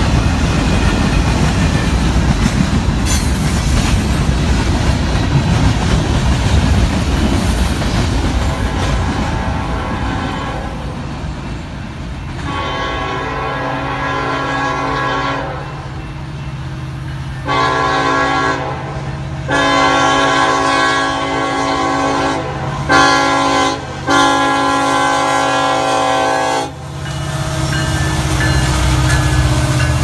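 Freight cars rumbling and clacking over the rails as a train rolls by. Then a Union Pacific SD70ACe diesel locomotive's air horn blows five blasts, long, short, long, short, long, for a grade crossing. Under the horn its diesel engine runs with a steady low hum that grows louder as it arrives.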